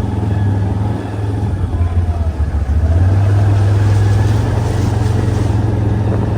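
Engine of a farm utility vehicle running steadily while driving, a low hum that grows louder about three seconds in.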